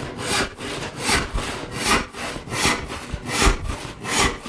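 Handsaw cutting through a wooden board in a steady rhythm, a loud rasping cutting stroke about every 0.8 seconds. The backstrokes between are quiet, with no rattle: the sign of a saw running straight and plumb in the cut.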